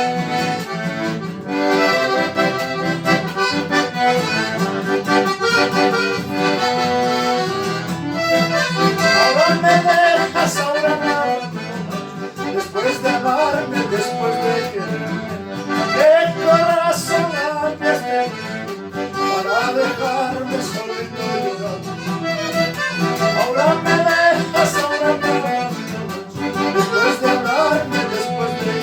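Accordion playing a melody of quick runs of notes over a steady bass note.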